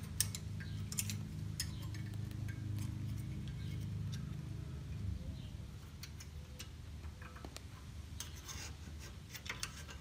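Light, irregular metallic clicks and scrapes of a flathead screwdriver and a spring-steel brake pad retaining clip being pried into place against a brake caliper. A low steady hum underlies the first half and fades out about halfway through.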